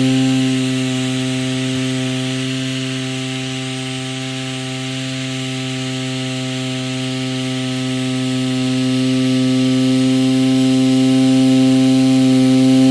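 Small DC motor spinning a propeller, running with a steady hum and a whirring hiss; the loudness dips slightly partway through and rises again.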